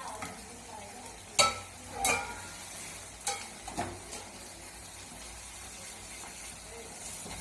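Onion-tomato masala gravy frying in oil on a low flame with a faint steady sizzle, while a spoon stirs it and knocks against the pan four times in the first four seconds. The masala is being fried down until the oil separates.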